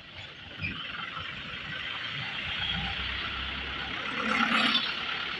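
Diesel truck engine running, growing louder from about half a second in and loudest about four seconds in.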